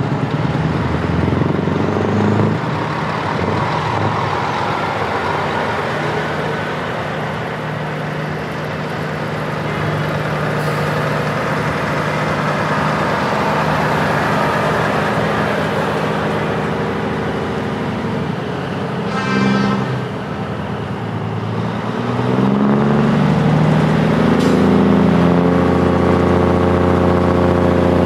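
Heavy truck diesel engines running as trucks drive past one after another. A short horn blast sounds about two-thirds of the way through. Near the end a louder engine note rises in pitch as the next truck pulls closer under power.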